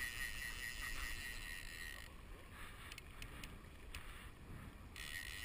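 Fly reel's ratchet buzzing steadily as line runs through it, stopping about two seconds in and starting again near the end, with a few separate clicks in between. Rushing river water and wind on the microphone underneath.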